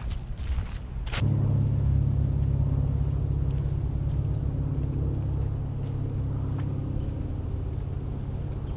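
A steady low engine hum that starts abruptly about a second in and holds one pitch, with a few faint ticks over it.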